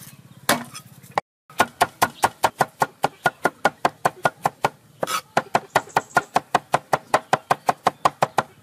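Cleaver chopping garlic on a round wooden chopping board. After a knock and a brief gap about a second in, rapid, steady chopping runs at about five strokes a second.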